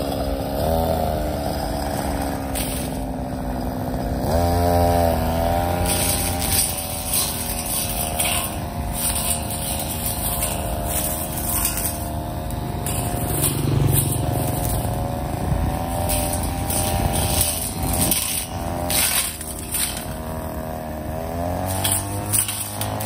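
Mitsubishi TL23 two-stroke brush cutter running and cutting grass and vines. The engine note rises and falls as the throttle is worked, with frequent scraping strikes as the cutting head hits the growth.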